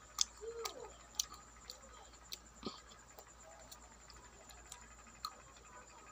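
Quiet wet mouth clicks and lip smacks from licking and eating a strawberry ice cream bar, coming irregularly about every half second.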